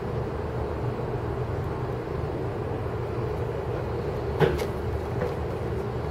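Steady low hum and rumble of outdoor background noise, with one short sharp knock about four and a half seconds in.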